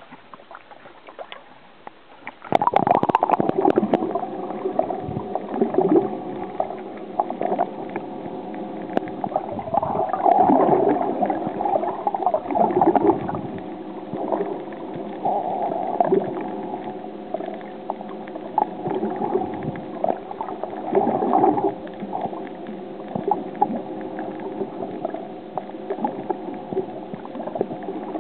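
Camera dunked into seawater about two and a half seconds in, then the muffled underwater sound of water gurgling and sloshing against the camera as it moves, rising and falling in swells, with a steady low hum underneath.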